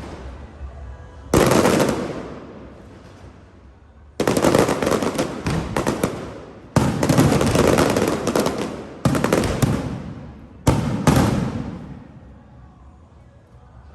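Aerial fireworks shells bursting overhead: five sudden loud bursts a few seconds apart, each followed by a dense crackle that fades out over a second or two.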